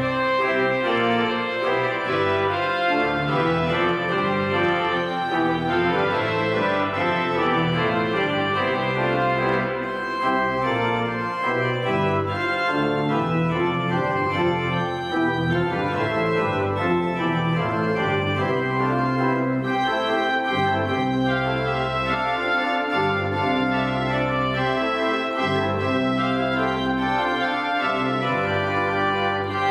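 Organ playing a postlude at the close of a church service: full sustained chords over held bass notes that change every second or two.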